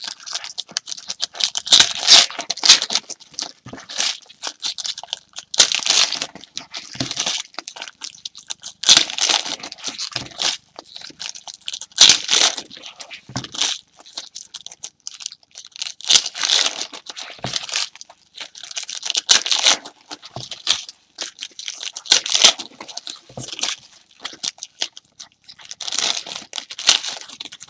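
Trading-card pack wrappers being torn open and crinkled, one pack after another, in repeated loud bursts of tearing and crackling.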